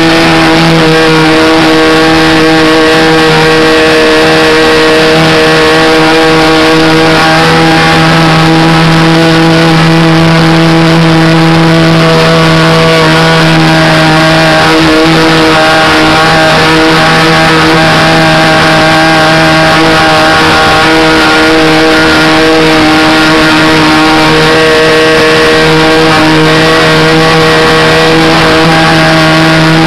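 Engine of a radio-controlled Cessna Skylane 40 model airplane running loud and steady in flight, heard close up from on board the plane, with the hiss of rushing air. The pitch holds nearly level, wavering only slightly.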